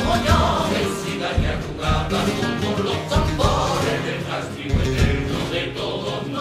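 Cádiz carnival comparsa performing: a men's choir singing in harmony over Spanish guitars, with a few low drum beats.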